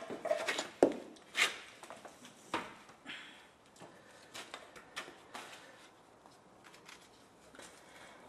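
A few sharp metal knocks and clunks as the removed cylinder head of a Volvo 940's 2.0-litre petrol engine is handled and turned upside down. They are loudest in the first three seconds, then give way to faint small clicks.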